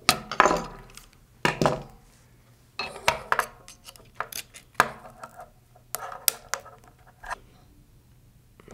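Irregular clinks and short clatters of small aluminium parts and hand tools: a hex key and pliers working a screw and lock nut, and aluminium beam and gear-rack pieces knocked together and set down on a wooden tabletop.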